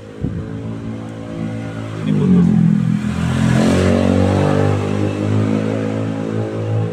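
A motor vehicle's engine running, getting louder and rising in pitch about two seconds in, loudest around the middle.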